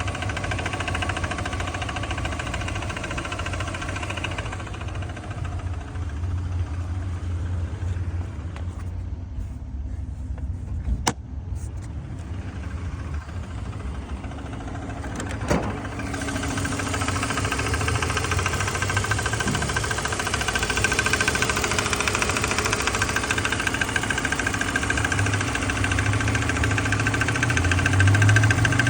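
2005 BMW 330Ci's straight-six engine idling with the ticking and squealing noise under investigation. About halfway a steady high squeal-like tone comes up over the engine, two sharp clicks sound in the middle, and the engine note rises near the end.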